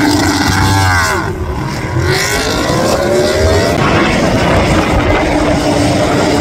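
Racing motorcycles at speed on the circuit. One engine note falls in pitch as a bike passes about a second in, then an engine note rises steadily as a bike accelerates.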